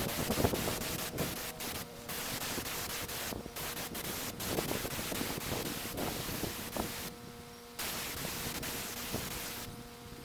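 Air spray gun hissing as it sprays sanding sealer, cutting out briefly several times between passes, with one longer pause about seven seconds in.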